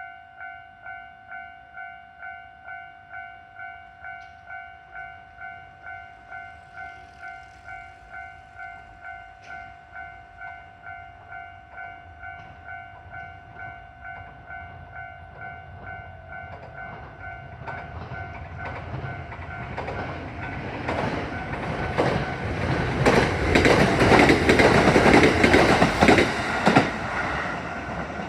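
Level-crossing warning bell ringing steadily, about two strokes a second. From about two-thirds through, a Kintetsu train approaches and passes loudly, its wheels clacking over the rail joints, then starts to fade while the bell keeps ringing.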